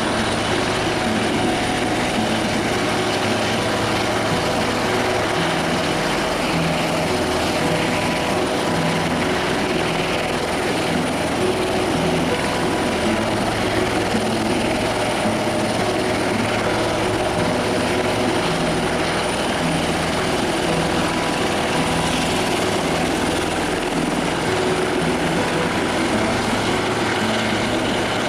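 Helicopter running steadily, its rotor and engine noise even throughout, with a thin high whine held over it.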